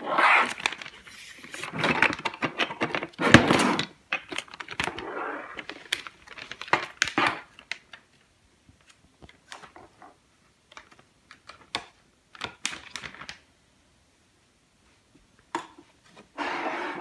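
A clear plastic icing bag rustling and crinkling, with light clicks and taps of hard plastic cups, as crushed Orbeez are poured into the bag. The handling is busiest in the first few seconds, then thins to scattered clicks, with one more burst of rustling near the end.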